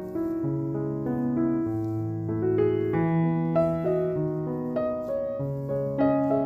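Background piano music: a gentle melody over a slow bass line, the notes changing about every half second.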